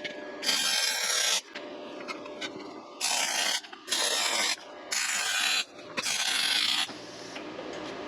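Arc welder laying a series of short tack welds on steel: five separate bursts of crackling hiss, each a little under a second, with short pauses between them.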